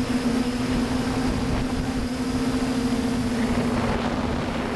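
Quadcopter's four brushless motors and propellers humming steadily in flight, heard from the camera on board, over a rushing wind noise. The pitch dips slightly about three seconds in.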